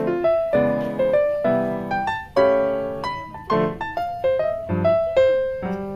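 Piano music: a melody of struck notes and chords, each fading after it is played.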